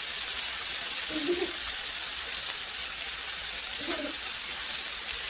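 Slices of hanwoo ribeye sizzling on a perforated tabletop grill plate, a steady hiss of fat frying. Two faint, short vocal sounds come about a second in and near the end.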